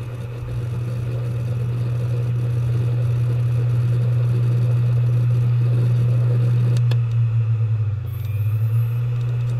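Computer hard drive heard through a phone resting on it: a loud, low hum that builds over the first few seconds, then pulses unevenly for about two seconds near the end. This is the grinding the drive makes when load is put on it, which the owner takes for a drive fault.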